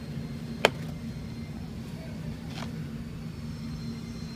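Steady low mechanical hum of a store's building machinery, with one sharp click about two-thirds of a second in and a fainter click about two and a half seconds in.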